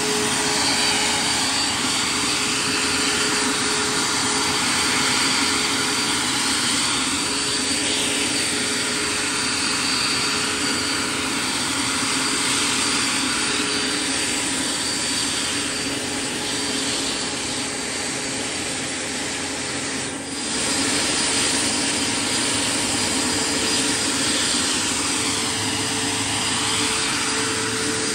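Scale RC MD 600N helicopter running in a hover: a steady jet-like whine from its model gas turbine, mixed with the rotor and the tail's electric ducted fan, which is throttled down to about 20% to cut its RPM and current draw. The sound dips briefly about 20 seconds in.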